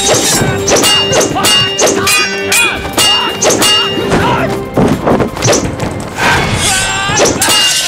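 A film fight-scene soundtrack: a rapid series of blows, thuds and crashes, several followed by short ringing tones, over a music score.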